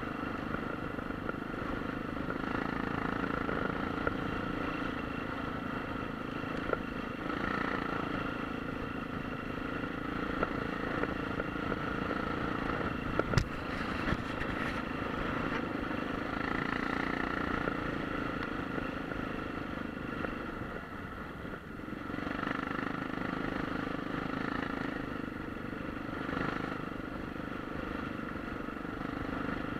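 Motorcycle engine running steadily while riding, dipping briefly about two-thirds of the way through. A single sharp click comes about thirteen seconds in.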